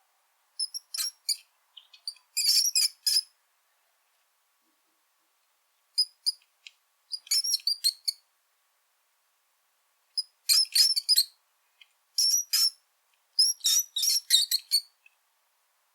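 Brown rat squeaking: clusters of rapid, high-pitched squeaks, about seven bursts separated by silent gaps.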